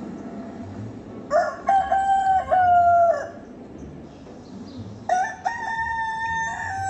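A rooster crowing twice, a recorded cock-a-doodle-doo played back as a sound clip. Each crow is a long pitched call lasting about two seconds.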